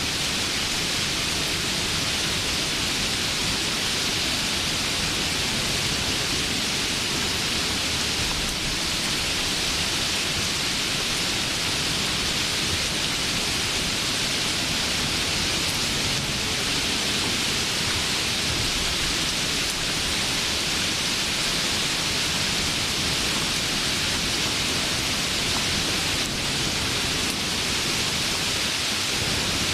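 Steady rain falling, an even hiss with no breaks or distinct drops standing out.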